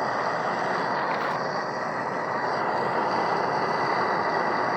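Torch flame hissing steadily as it heats a rusted aluminium carburetor body to loosen a seized main nozzle.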